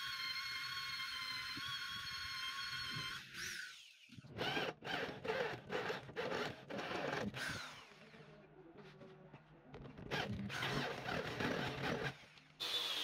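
Corded electric drill's motor whining steadily as a twist bit bores into a metal block. About three and a half seconds in it cuts out, then runs in short bursts with a rough chattering cut, and runs steadily again near the end.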